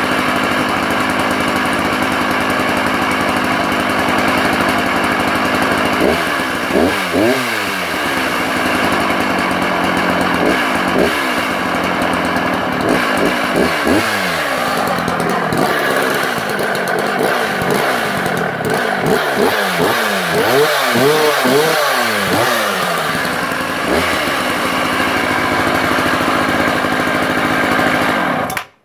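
Dolmar 133 85cc two-stroke chainsaw engine running out of cut, idling and revved briefly several times, with a quick run of throttle blips past the middle, then shut off abruptly near the end. It carries a low-down rumble that the owner says is undoubtedly the main bearings gone.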